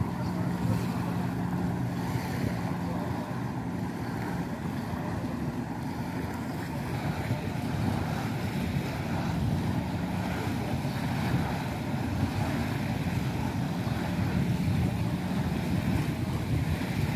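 Jet ski engine running steadily, driving water up the hose that lifts a flyboard rider, with a faint steady hum that comes and goes. Wind on the microphone and water noise run through it.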